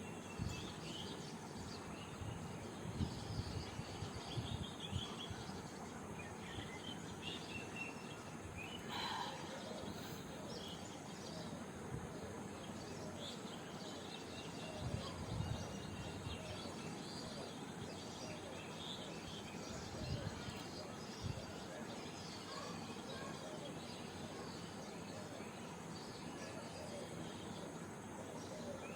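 Quiet background ambience: a steady hiss with scattered faint bird chirps and a few soft low bumps.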